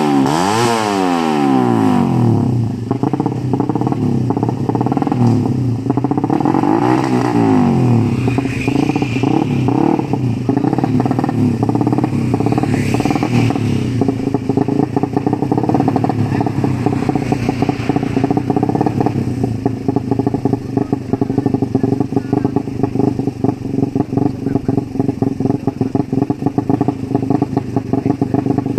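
Ported Suzuki Satria FU racing motorcycle engine, a single-cylinder four-stroke, being revved. The revs drop from high at the start, it is blipped up and down again about seven seconds in, and then it settles into a lumpy, choppy idle likened to a helicopter.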